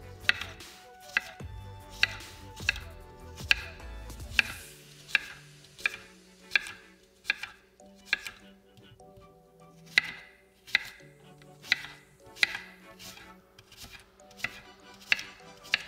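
Chef's knife chopping an apple into chunks, the blade knocking on the hard work surface in a steady series of sharp taps, a little over one a second.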